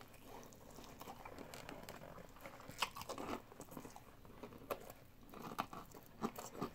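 Fried chicken being bitten and chewed, meat pulled off the bone: faint, irregular crunches and wet mouth clicks, with a few louder ones about three seconds in and near the end.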